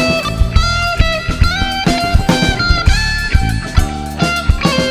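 Live band playing an instrumental piece: a drum kit keeps a regular beat under electric bass and electric guitar, with a lead melody moving in short held notes.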